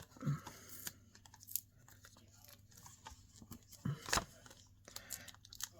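Foam adhesive dimensionals being peeled off their backing sheet for small paper cut-outs: scattered faint crackles and a few sharp ticks of paper and backing being handled.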